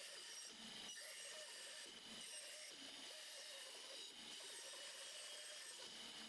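Band saw running and cutting a wooden board: a faint, steady hiss with a thin high whine.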